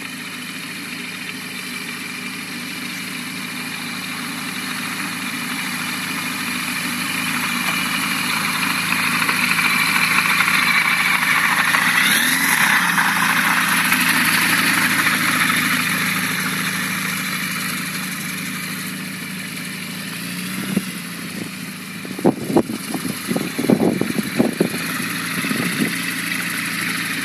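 Pipistrel Sinus motorglider's engine and propeller running steadily as the aircraft taxis, growing louder as it comes close and then easing off. In the last few seconds, irregular knocks and bumps break into the sound.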